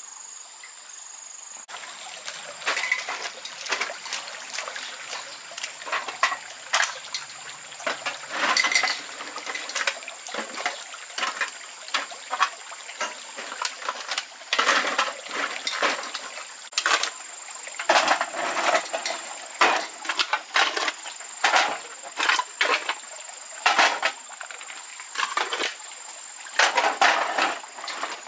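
Water splashing and sloshing in irregular bursts, every second or so, over a steady high-pitched insect drone.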